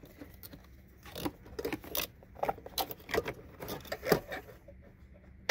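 Hard plastic clicks and rattles from handling an automotive wiring connector block and its mounting bracket in an engine bay: a string of short, irregular knocks, then one sharp click at the end.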